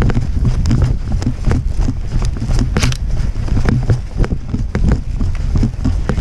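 Quick running footsteps on dry grass, with the jostling rattle of gear and an airsoft rifle carried at a sprint, over a steady rumble of wind on the microphone.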